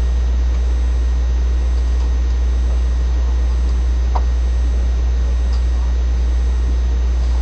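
A steady low-pitched hum with an even hiss over it, unchanging throughout, and a faint brief squeak about four seconds in.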